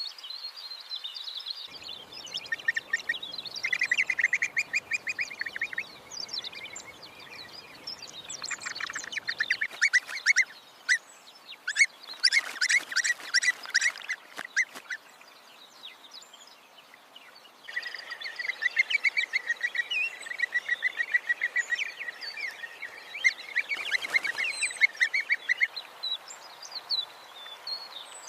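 Birds calling: several bouts of rapid, rattling trills made of fast repeated notes, with higher chirps scattered over them.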